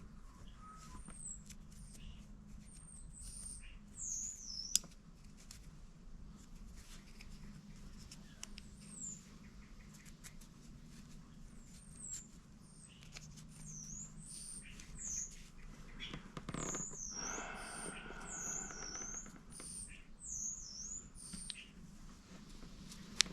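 A small bird chirping over and over, with short high chirps that swoop downward. Scattered small clicks of handling come through beneath it, and a scratchy noise runs for about three seconds in the second half.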